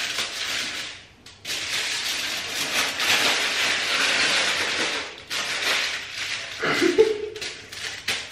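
Aluminium foil crinkling and rustling as it is scrunched and pressed around a head of hair, in long spells with short breaks about a second in and about five seconds in. A brief lower-pitched sound comes near the end.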